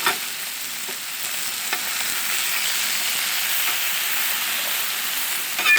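Top sirloin steaks searing on a Blackstone flat-top griddle: a steady high sizzle, with a few faint clicks and a short sharp sound near the end.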